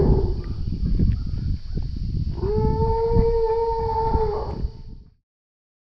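Asian elephant calf calling: a brief call at the start, then one long, steady, high-pitched call of about two seconds midway through, over a low rumble on the microphone. The sound cuts off near the end.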